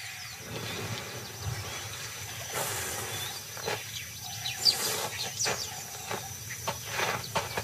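Nile crocodile digging a nest in dry earth: irregular scratchy scrapes of claws and loose soil, with birds chirping in the background.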